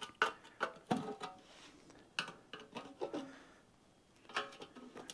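Metal clinks and knocks, each with a short ring, from handling the gallon can of carburetor parts cleaner and working its lid off. There are about a dozen irregular hits, with a lull shortly before the end.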